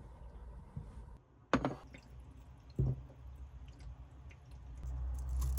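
Quiet room with two sharp knocks, about a second and a half in and again about a second later, and a low rush of noise building near the end.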